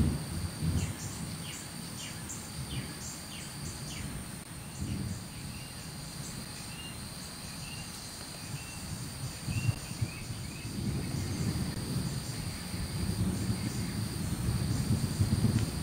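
Evening outdoor ambience: insects trilling steadily at a high pitch while birds chirp in short notes, over wind rumbling on the microphone that gets stronger in the last few seconds.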